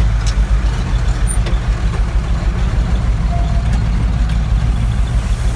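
1985 Ford F-14000 truck's diesel engine running through a straight-pipe exhaust, a steady low rumble.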